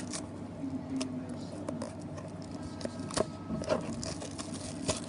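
Scattered light clicks, taps and rustles of trading-card packaging and cards being handled, over a steady low hum.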